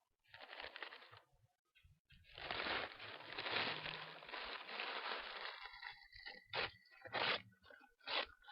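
Cardboard being cut and torn apart: a short rasp near the start, a long continuous tearing scrape from about two seconds in, then several short sharp crunches near the end.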